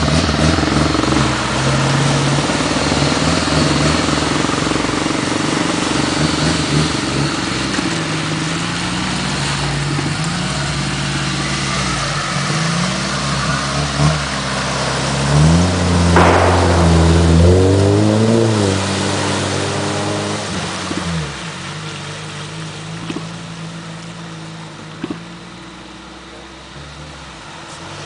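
Off-road SUV engines running and revving through mud and water, the pitch rising and falling with the throttle. The engines are loudest, revving up, a little past halfway, then fade as the vehicles pull away down the trail.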